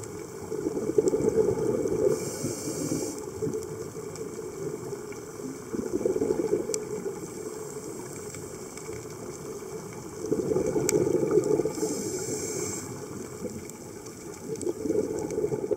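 Scuba diver breathing through a regulator, heard underwater: four rushes of exhaled bubbles a few seconds apart, with the high hiss of an inhalation through the regulator twice between them.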